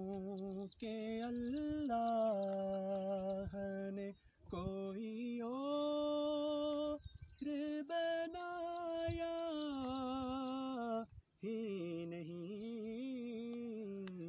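Unaccompanied male voice singing a naat in long, drawn-out melodic notes with no clear words, the phrases broken by a few short pauses.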